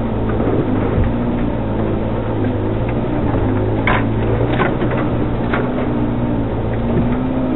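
Off-road 4x4's engine running at a low, steady speed while crawling along a rough track, with three or four short knocks and rattles from the vehicle around the middle.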